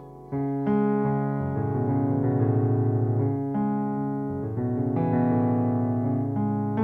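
Yamaha electric keyboard played in slow, sustained piano chords. A loud new chord is struck about a third of a second in, and further chords follow every second or so over a low bass line.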